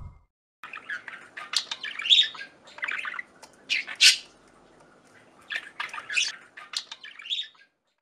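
Budgerigar chirping and squawking in a quick run of short, shrill calls, with a brief lull around five seconds in.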